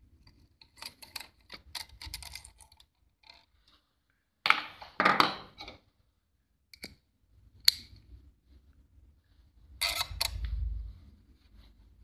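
Hand work with a screwdriver and small metal screws at an industrial sewing machine's handwheel: scattered light clicks and clinks, with two louder scraping rattles, one about halfway through and one near the end, and a single sharp click between them.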